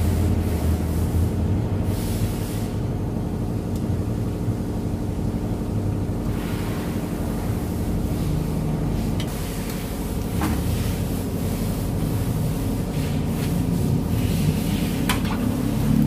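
A steady low mechanical hum, with a few light clinks of a metal ladle against a wok as curry is stirred in the second half.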